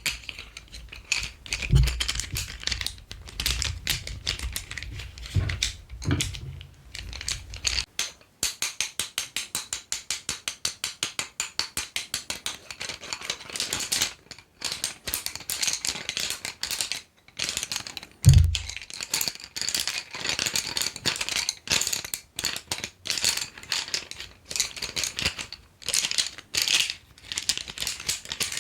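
Colored pencils being tapped and rattled together: quick runs of light clicks and rattles, at times a fast even ticking, with a few soft low thumps.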